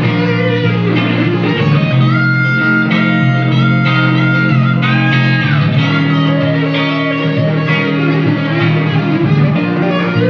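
Slow-blues electric guitar solo over a steady low accompaniment, with long held high notes bent upward in pitch in the middle.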